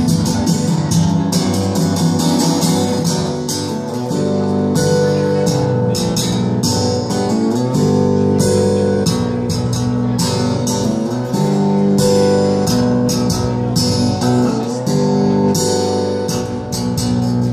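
Solo acoustic guitar played live, with sustained chords and many crisp, rapid strums.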